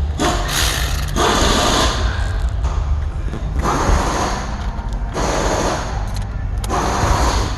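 Torx screws being driven back in to refit a car's glove box: four scraping, rubbing bursts of about a second each over a steady low rumble.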